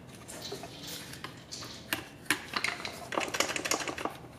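Light metallic clicks and taps of a screwdriver and small steel parts being worked around the clutch fork on a bare Honda manual transmission case, with clusters of quick clicks about two and three seconds in.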